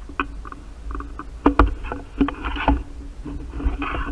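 Footsteps, knocks and rustling gear of a player moving through a building, picked up close on a body-worn camera: irregular knocks with two loud sharp ones about a second and a half in, and scuffing rustle twice later on.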